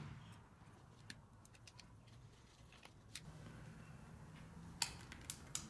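A few faint, scattered clicks and taps of a plastic tire-sealant bottle and its hose being handled and pushed onto a mower tire's valve stem, the loudest few near the end, over a quiet background.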